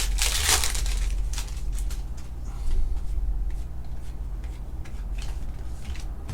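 Trading cards being handled and slid against one another: a series of short, soft brushing and flicking noises over a low, steady hum.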